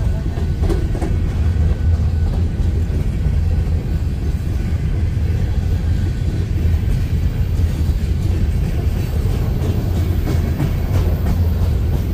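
Empty coal gondola cars of a freight train rolling past close by: a steady rumble of steel wheels on the rails, with a few faint clicks.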